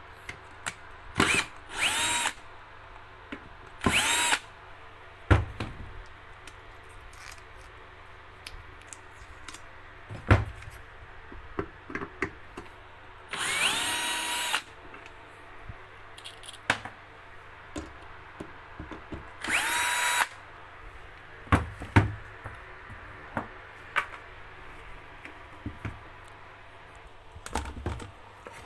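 Bosch GSB 120-LI cordless drill/driver backing screws out of the plastic base of an electric sauna steamer, in several short runs of its motor, the longest about a second long and rising in pitch as it spins up. Clicks and knocks of the screws and the handled casing come between the runs.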